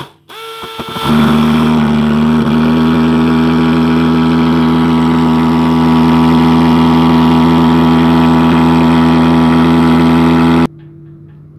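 Pulse-jet thermal fogging machine catching about a second in and running with a steady loud buzz, then cutting off suddenly near the end, leaving only a faint low hum.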